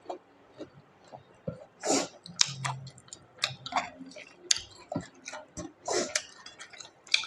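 Mouth eating sounds while eating pork curry and rice: irregular wet chewing, smacking and small clicks, a few louder smacks about two, six and seven seconds in.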